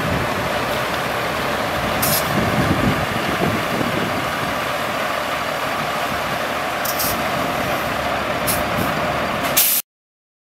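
Freightliner M2 water truck's diesel engine running while water sprays from its rear spray bar onto gravel, a steady rushing hiss over the engine. A few short, sharp hisses break in, and the sound cuts off suddenly near the end.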